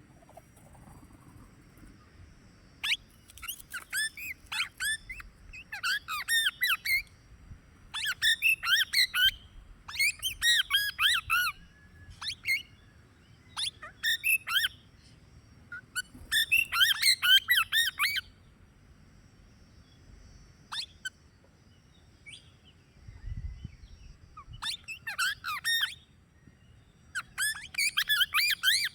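Plum-headed parakeet calling in bouts of rapid, high-pitched squawking notes, each bout a second or two long. The calls fall mostly quiet for several seconds past the middle, then start again.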